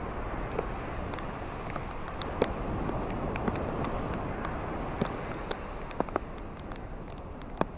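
Steady rain falling, with scattered sharp taps of single drops landing close by, a few of them louder.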